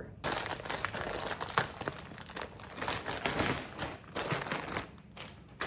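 Plastic packaging crinkling and rustling as a folded area rug is unwrapped and handled, with many small crackles.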